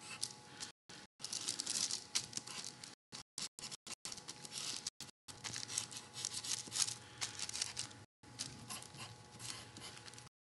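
Graphite pencil scratching softly over tracing paper laid on carbon paper, tracing lines in uneven strokes with brief pauses.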